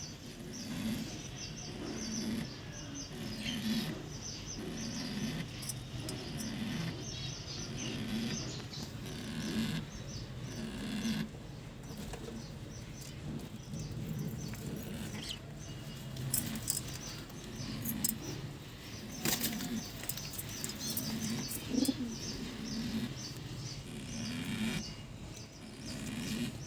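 Pigeons cooing in low phrases repeated about once a second, with finches chirping in short high notes over them.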